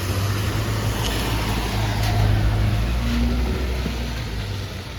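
Engine rumble of an approaching tour tram passing close by. It swells to its loudest midway, then fades as it moves off.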